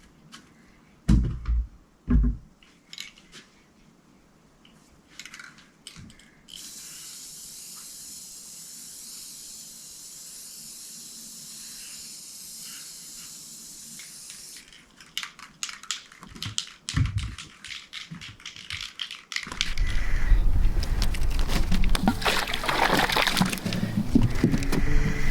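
Light clicks and knocks, then a steady high hiss of spraying for about eight seconds, then more knocks. Music comes in a little over two-thirds of the way through.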